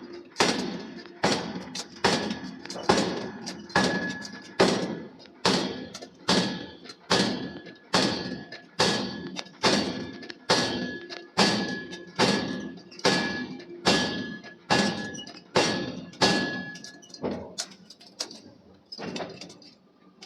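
A forging hammer striking a steel billet in a steady rhythm, a little more than one heavy blow a second, each ringing briefly. The blows stop near the end, with one or two lighter strikes after.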